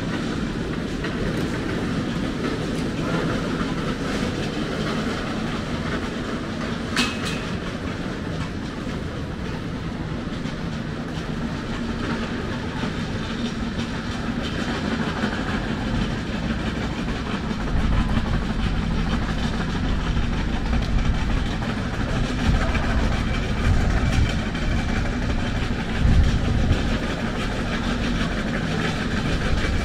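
City street noise of traffic, steady throughout, with a sharp click about seven seconds in and a deeper engine rumble that swells from about eighteen seconds in.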